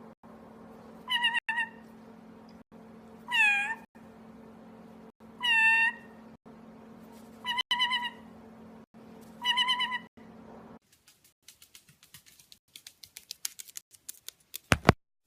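Meowing calls repeated about every two seconds, five in all, over a steady low hum. The calls and hum stop about eleven seconds in, and a run of quick, quiet clicks follows.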